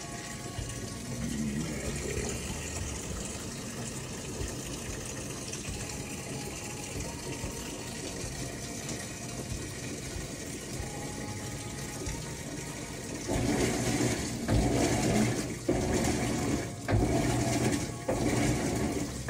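Top-loading washing machine filling, water pouring into the drum onto the clothes. About two-thirds of the way through the sound grows louder and more uneven, in repeated surges.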